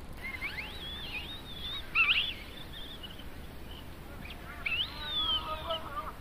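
Wild birds calling over a steady outdoor background: a run of whistled notes sliding up and down in pitch, loudest about two seconds in, with a lower chattering group of calls near the end.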